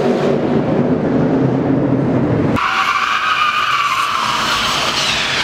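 Car engine revving under load as a car drifts. About two and a half seconds in, the sound cuts abruptly to tires squealing steadily as a car spins donuts.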